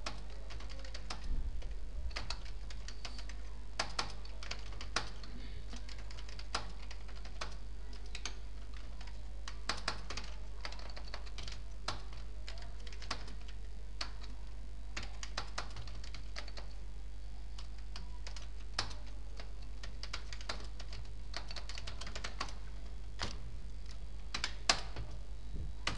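Typing on a computer keyboard: irregular runs of keystroke clicks as text is entered, over a steady low hum.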